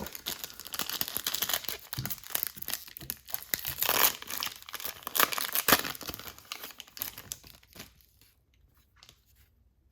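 A baseball card pack's wrapper being torn open and crinkled by hand, a dense crackling rustle that stops about two seconds before the end.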